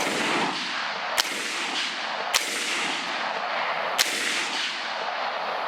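Four rifle shots fired at a hog, spaced a second or more apart, over a steady background hiss.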